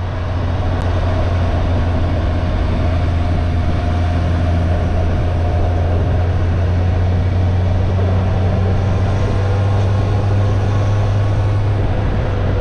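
Motorcycle riding at a steady speed: a steady low engine drone under wind rushing over the microphone.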